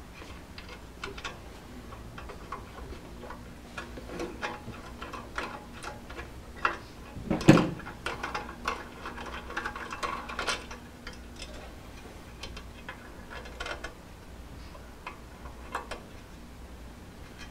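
Scattered metal clicks and knocks as the cast table of a DeWalt 788 scroll saw is fitted back onto its trunion, with one louder knock a little before halfway.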